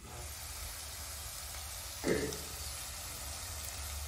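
Mixed vegetables cooking in oil in a covered pan, giving a steady soft sizzle. A short louder sound breaks in about two seconds in.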